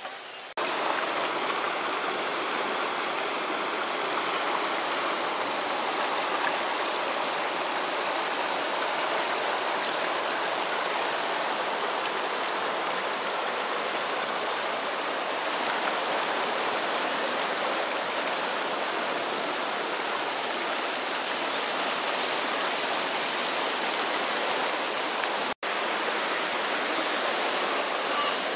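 Mountain river rushing over stones and through small rapids, a steady loud rush of water that cuts out for an instant near the end.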